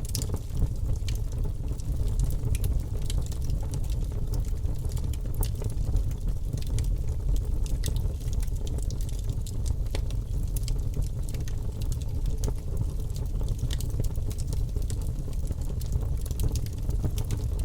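Bonfire burning: a steady low rumble of flames with frequent irregular crackles and pops.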